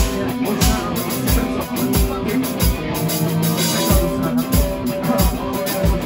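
Live rock band playing: electric guitars and bass over drums, with a steady kick-drum beat about three times every two seconds.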